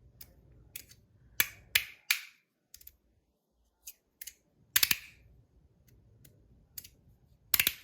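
Stainless-steel haptic fidget slider with a Timascus inlay being slid back and forth, snapping into its magnetic steps with irregular sharp clicks, a few of them noticeably louder.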